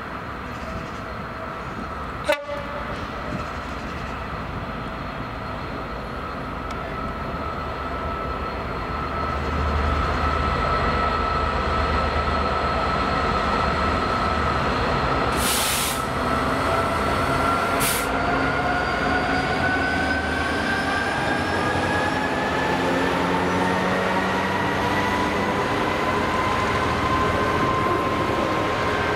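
DB Cargo Class 66 diesel locomotive hauling a train of box container wagons past, running with a steady high whine that slowly rises in pitch in the second half, over the rumble of the wagons' wheels, which grows louder about ten seconds in. A sharp click comes about two seconds in, and two short hisses come near the middle.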